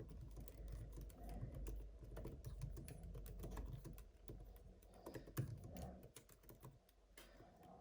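Typing on an iPad Magic Keyboard: a quick, faint run of key clicks that thins out near the end.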